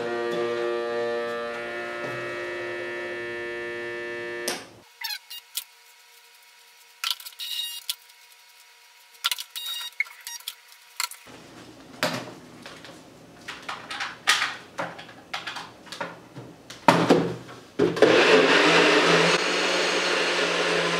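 A NutriBullet blender's motor running with a steady whine for about four and a half seconds, powered from a portable jump-starter power pack, then stopping. Scattered clicks and knocks follow as the blender cup is handled, and a steady rushing noise starts near the end.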